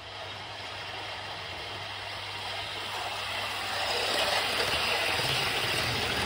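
Model train running past close by, its wheel-on-rail and motor noise growing louder and loudest near the end.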